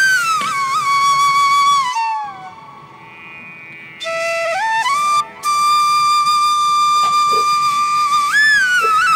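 Background music: a solo flute melody with long held notes and slides between them. It grows quieter about two seconds in, comes back about four seconds in, and breaks off briefly just after five seconds.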